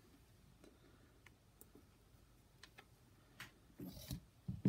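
Hands handling a small wired pin header on a work mat: a few faint scattered clicks, then a cluster of louder knocks and rustles from about three and a half seconds in, the loudest at the very end.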